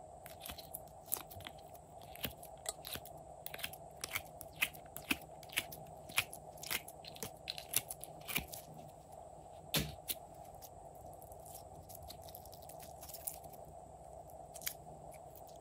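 Glossy slime being pressed out of a silicone ice-cube mold and squeezed by hand: a run of small sharp crackles and pops, thinning out after about ten seconds.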